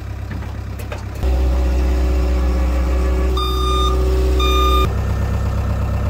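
ASV tracked skid steer's engine running, louder from about a second in and easing back near the end, with two long backup-alarm beeps about a second apart.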